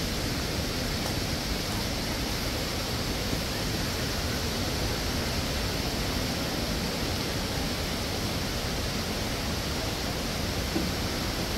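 A steady, even rushing noise with no distinct events or pitch.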